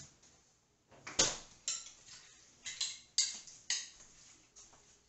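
A utensil clinking against a glass bowl of cucumber fridge pickles as pieces are picked out: a run of about six sharp clinks, some with a brief glassy ring, the loudest about a second in.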